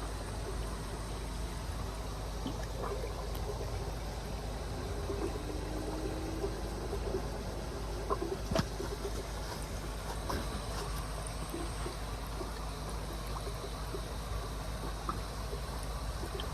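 Water trickling and splashing steadily in a koi fry tank, over a steady low hum, with a few small knocks, the sharpest about halfway through.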